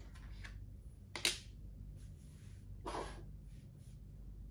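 Plastic makruk pieces being moved and set down on the board: one sharp click about a second in, the loudest, and a softer knock near three seconds, over a low steady hum.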